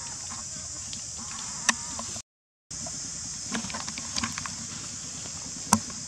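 Steady high-pitched drone of insects, with scattered light clicks and rustles and two sharper clicks. The sound cuts out completely for about half a second around two seconds in.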